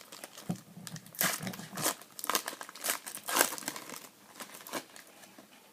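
Plastic wrapper of a trading card pack crinkling and tearing as it is opened by hand, in a run of short rustles that die down near the end.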